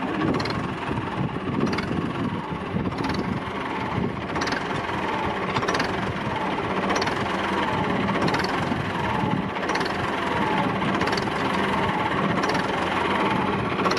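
Tractor engine idling steadily, a constant low hum, with a faint high tick repeating about every second and a half.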